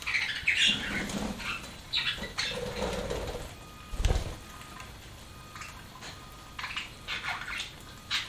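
Pet budgerigars eating, with scattered short pecking and nibbling noises and occasional brief chirps. A dull thump comes about four seconds in.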